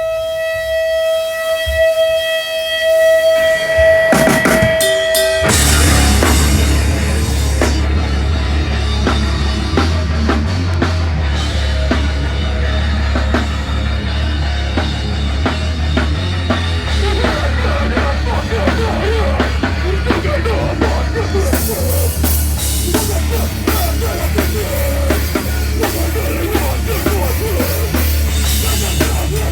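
Live heavy band starting a song: a steady held tone rings for about five seconds, then drums and the full band come in loud and keep playing.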